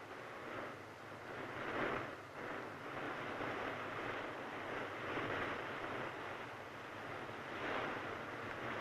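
Wind rustling through tree foliage in gusts, rising and easing every second or two.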